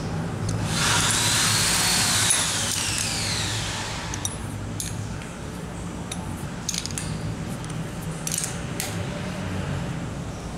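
Short metallic clicks and clinks of a ring spanner working the hex nuts on anchor bolts, scattered through the middle and later part. Near the start a loud whine rises briefly and then falls in pitch over about three seconds, and a low steady hum runs underneath.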